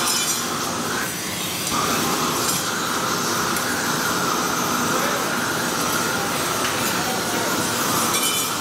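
Handheld propane torches burning with a steady hiss; the sound thins briefly about a second in.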